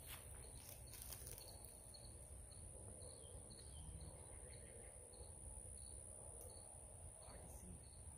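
Near-silent outdoor ambience: a steady high insect drone with a short high chirp repeating at fairly even spacing, over a faint low rumble.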